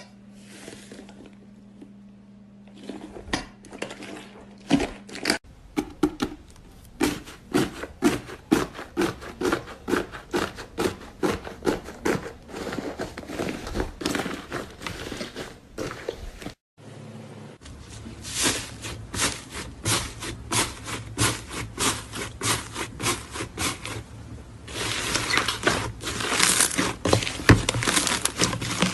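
Slime being squeezed and pressed by hand: a quick run of sticky clicks and pops, several a second. About halfway through it breaks off abruptly and resumes, ending in a longer crackling, crinkly stretch.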